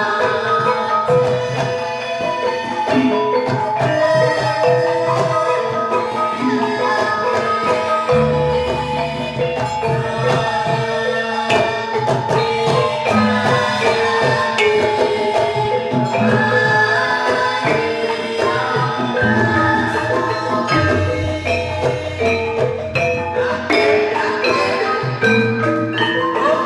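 Campursari ensemble playing: gamelan metallophones ring out the melody in steady struck notes over drums. Deep low notes swell in twice, for a few seconds each.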